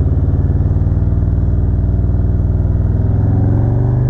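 2017 Harley-Davidson Road Glide Ultra's Milwaukee-Eight 107 V-twin engine running steadily with an even pulsing beat, its pitch creeping up slightly in the last second or so.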